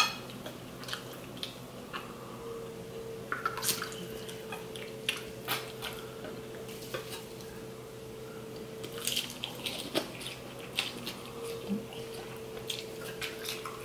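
Eating sounds: metal forks clicking and scraping on plates as pasta and salad are picked up, with wet mouth sounds of chewing. A faint steady hum runs underneath, dropping out for a couple of seconds near the middle.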